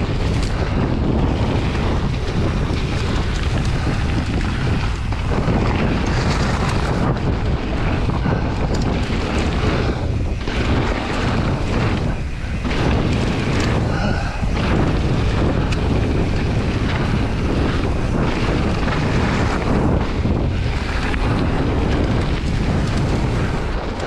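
Wind buffeting a camera microphone during a mountain bike ride, over a steady low rumble from the bike rolling along the trail, with frequent small knocks.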